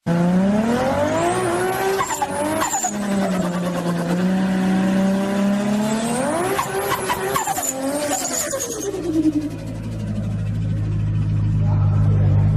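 Turbocharged car engine accelerating hard. The revs climb, drop at gear changes about two seconds and six and a half seconds in, and climb again, with a brief high chatter of turbo flutter on each lift-off. After about nine seconds it settles into a low, steady drone with a rapid fluttering pulse.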